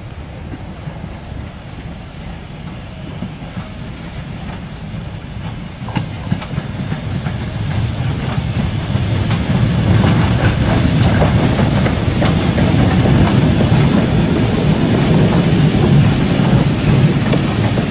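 A train running on the rails, growing louder from about six seconds in and then holding steady, with the wheels clattering over the rail joints.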